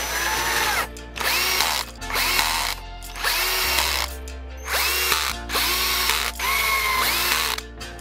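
Cordless drill driving screws through steel angle brackets into a wooden board, in a run of short bursts about a second apart. Each burst has a whine that rises and then drops. Background music plays underneath.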